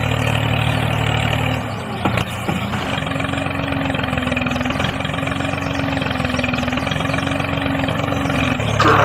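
Mini tractor running with a steady engine-like hum. The low hum drops away about two seconds in, and a steadier, higher tone holds from about three seconds to near the end.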